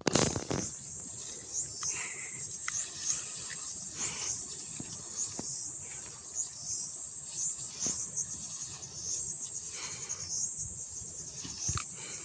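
Insect calling with a high-pitched buzzing trill, broken into repeated pulses about once a second.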